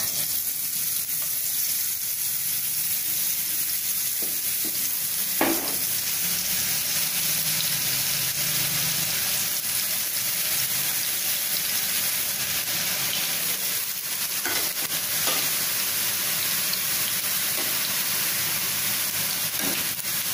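Boondi frying: drops of besan batter falling through a perforated ladle into hot oil and sizzling steadily in the pan. A few sharp clicks stand out now and then.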